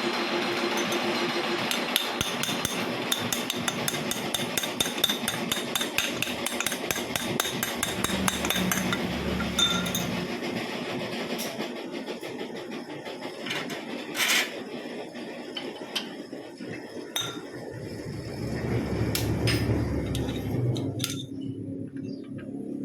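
Metal clicking and tapping over a steady mechanical noise for about the first ten seconds, then scattered single knocks on metal like hammer blows, one sharper strike about fourteen seconds in.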